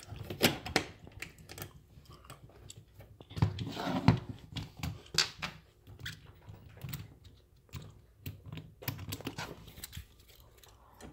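Irregular clicks, taps and knocks of small hardware being handled at a wall outlet, with a brief scraping rustle about three to four seconds in.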